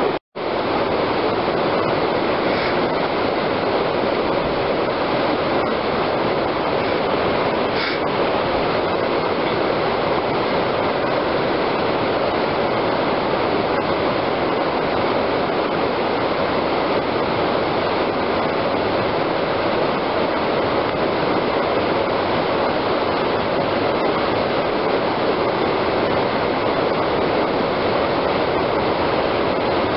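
Whitewater rapids rushing steadily, an even hiss of churning river water. It cuts out for a split second near the start.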